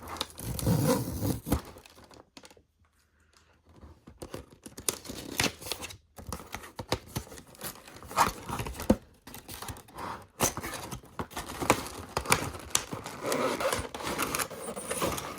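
Packaging being opened by hand: irregular tearing, crinkling and scraping of the doll's box and wrapping, with a quiet pause about two seconds in.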